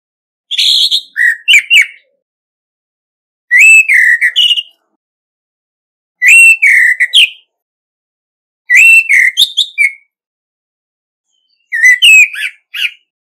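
Male orange-headed thrush singing its challenge song: five short, varied whistled phrases, each a little over a second long, with silent pauses of about one and a half to two seconds between them.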